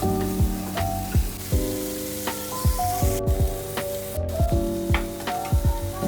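Food sizzling in a frying pan under gentle background music with a steady beat; the sizzle cuts out briefly twice.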